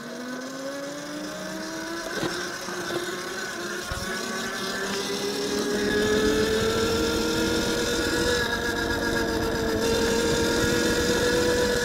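Tuttio Soleil01 electric dirt bike's motor whining at full throttle in its top power mode (zone 3), the whine rising in pitch as it accelerates and then holding steady once it reaches about 26–27 mph. A low rushing noise grows in under it from about four seconds in.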